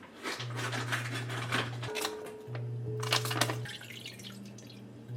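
Background music with a low, steady hum that stops and starts, over many short clicks and knocks of things being handled.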